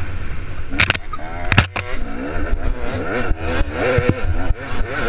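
Off-road motorcycle engine revving up and down as it is ridden over a dirt trail, its pitch rising and falling several times over a steady low rumble. A few sharp knocks come about a second in.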